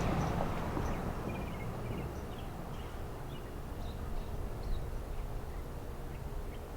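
Outdoor ambience: a steady low rumble, a little louder at first, with faint scattered high chirps.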